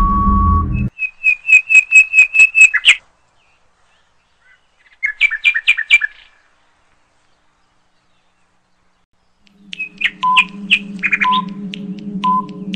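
Quiz-game sound effects: a short beep as the countdown runs out, then two runs of rapid, bird-like chirping tweets. After a few seconds of silence, a steady droning music bed returns with a short beep about once a second, ticking off the next countdown.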